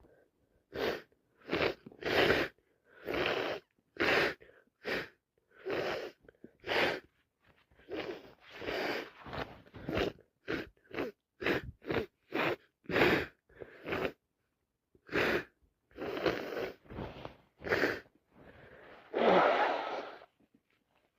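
A woman's fit of repeated sneezes and sharp breaths from a cold: about two dozen short bursts in quick succession, ending in a longer, louder one near the end.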